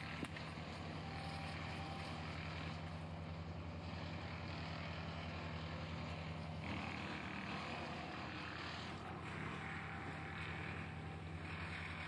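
Chainsaw running steadily while cutting into the Douglas fir trunk, with a constant engine pitch and a rougher cutting noise that swells and eases every few seconds.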